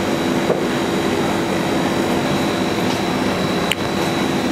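Steady mechanical drone of cooling equipment, a constant low hum with a thin high whine, with a couple of faint clicks.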